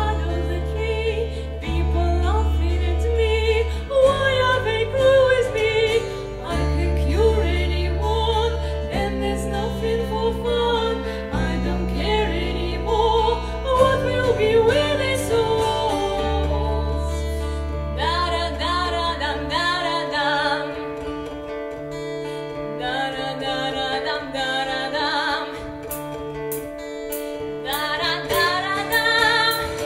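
A woman singing a song over instrumental accompaniment. Deep sustained bass notes carry the accompaniment until about two-thirds of the way through, then drop away and leave lighter backing under the voice.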